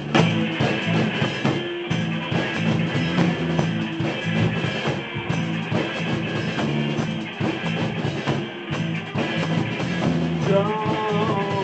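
A rock band playing the instrumental opening of a song, with drum kit, electric guitar and bass.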